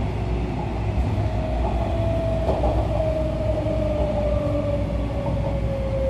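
An MTR A-Train electric multiple unit heard from inside the car as it slows along a station platform: a traction motor whine falls steadily in pitch over the low rumble of the running gear.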